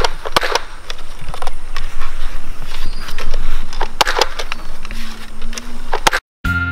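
A plastic toy rifle being handled, with several sharp clicks and knocks over a noisy rustling background. The sound cuts out suddenly near the end, and a children's jingle begins.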